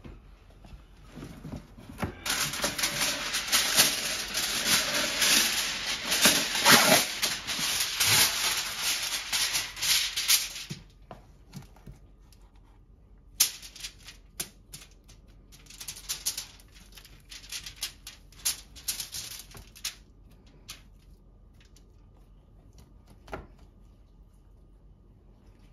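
Kitchen handling noise: a loud, dense crinkling rattle starting about two seconds in and lasting about eight seconds, then scattered lighter clicks and rustles, and a single knock near the end.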